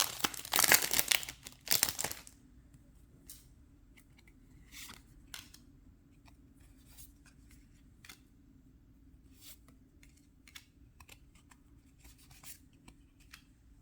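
Foil booster-pack wrapper torn open and crinkled loudly for about two seconds, then faint scattered clicks and slides of trading cards being flipped through one at a time.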